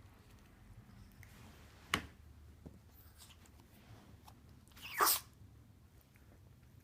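Small Chihuahua sneezing twice in a fit of sneezing after play: a short sharp sneeze about two seconds in and a louder, longer one about five seconds in.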